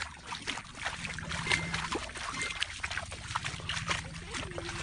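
Barefoot footsteps crunching and rustling through dry leaf litter and brush, with irregular crackles of leaves and twigs.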